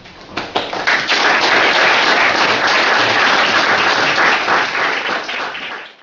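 Audience applause: clapping starts about half a second in, quickly swells to a full round of many hands, and thins out near the end.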